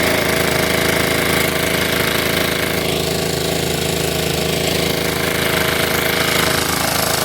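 Honda GC190 single-cylinder engine on a pressure washer running steadily at speed.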